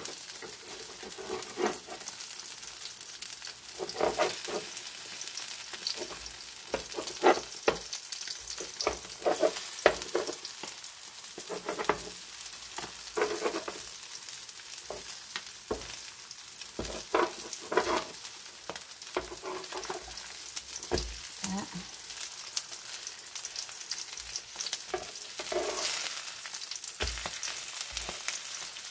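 Egg-battered skewers of ham, crab stick, vegetables and pork sizzling in hot oil on an electric griddle pan, with a steady hiss. A metal spatula clicks and scrapes against the pan again and again as the pieces are turned.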